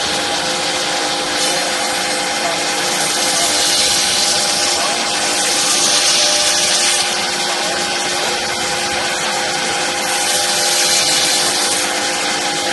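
Remax-1340 two-spindle CNC router running with a steady whine while its bits cut through sheet stock. The cutting hiss swells louder three times, for a second or a few seconds each.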